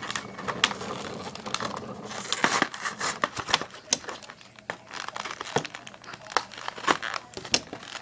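Clear plastic packaging crinkling and crackling as it is handled, with irregular sharp clicks scattered throughout.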